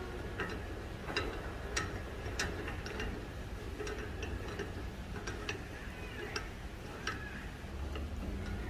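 Chuck key turning the jaw screw of a rebuilt four-jaw lathe chuck, giving light metallic clicks about once or twice a second as the jaw slides along its slot. The newly replaced jaw screw is being tried out.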